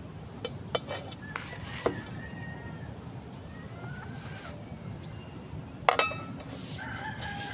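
Dishes and utensils clinking in a handful of sharp knocks, mostly near the start and about six seconds in. Short animal calls come between them, and a cat starts meowing near the end.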